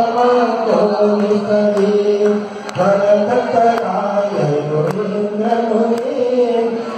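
A man's voice chanting a Jain devotional mantra into a microphone, in long held notes that rise and fall in a slow melody.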